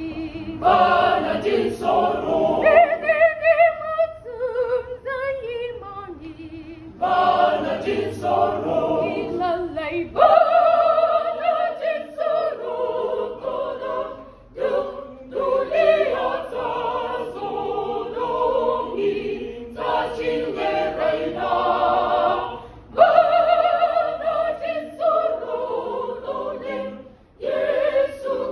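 A group of young voices singing together a cappella, in phrases with short breaks between them and a softer passage about four seconds in.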